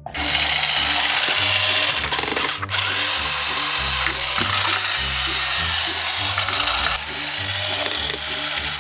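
Battery-powered toy hand mixer whirring as its beaters spin in play dough, cutting out briefly about a third of the way through and running softer near the end. Children's background music plays underneath.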